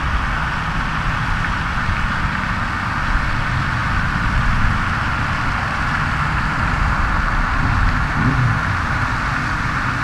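Steady outdoor background noise: a low rumble with an even hiss above it, unchanging throughout.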